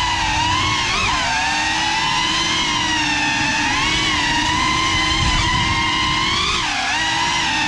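Ducted-prop cinewhoop FPV drone (GEPRC Cinelog 35 on 6S) whining steadily, its motor pitch wavering with throttle and dipping sharply then climbing back twice, about a second in and near the end.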